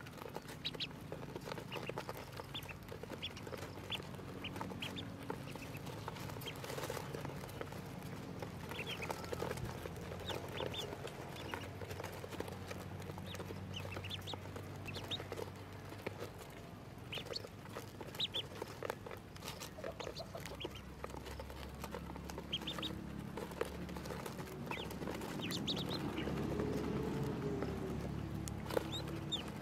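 A brood of ducklings peeping, with many short high peeps scattered throughout, over a low steady background hum.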